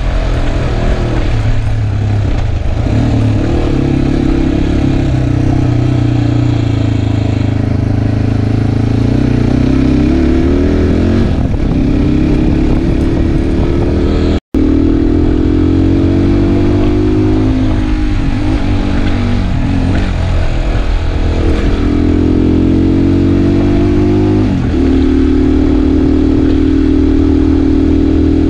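Motorcycle engine running while riding, its note climbing and then stepping back down several times, as with gear changes, over steady road and wind noise. The sound cuts out for an instant about halfway.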